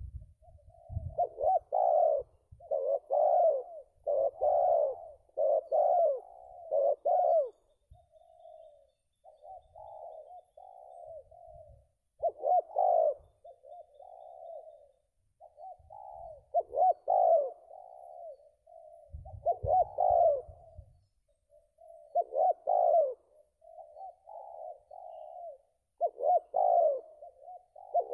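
Spotted dove cooing in repeated rhythmic phrases, with loud runs of coos separated by fainter coos.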